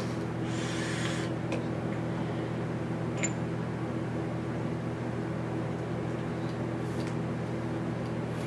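Steady hum of a fan, with several even tones, and a short breathy hiss of vape vapour being exhaled about half a second in.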